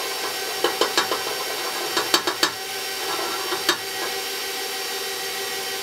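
Electric stand mixer running on low speed, beating eggs with a steady motor hum. Scattered sharp clicks and taps come over it, several close together about two seconds in.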